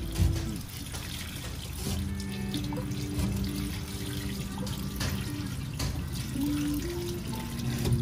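Water running in a kitchen sink while boiled egg noodles are tossed in a mesh strainer with tongs and a spoon, under background music of held melodic notes. A short knock just after the start.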